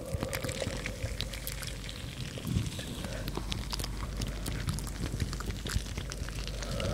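Two gel-bead-filled stress balls squeezed by hand close to the microphones: a dense, irregular run of soft crackles and squishes.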